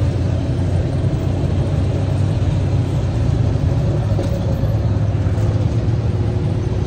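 Steady low engine rumble and road noise, heard from inside a moving vehicle.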